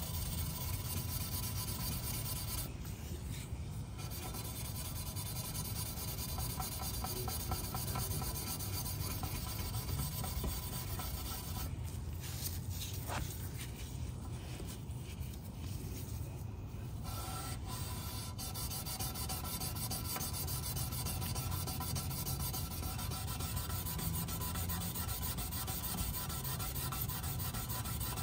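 Fine 0000 steel wool scrubbing carbon soot off a chrome exhaust tip trim on an Acura ZDX, a steady back-and-forth rubbing against the metal.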